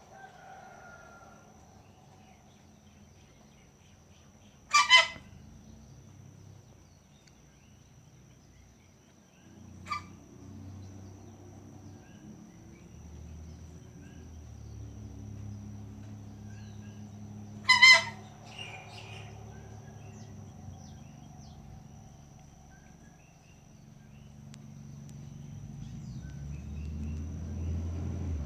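Gander (male goose) giving short, harsh whistling coughs: two loud ones about five and eighteen seconds in, and a fainter one about ten seconds in.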